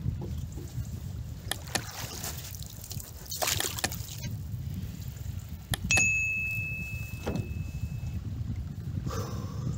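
Wind buffeting the microphone over water moving around a small boat, with a brief rush of noise about three and a half seconds in. About six seconds in comes a two-part mouse click and a single bell-like ding from a subscribe-button animation, ringing out and fading over about two seconds.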